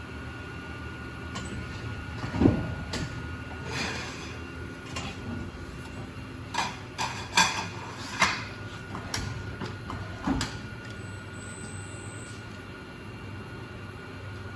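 Schechtl MAX 310 CNC sheet-metal folder running through a fold, a steady machine hum with a string of sharp clunks and clacks as its beams and gauges move, the loudest about two and a half seconds in and a cluster around seven to eight seconds.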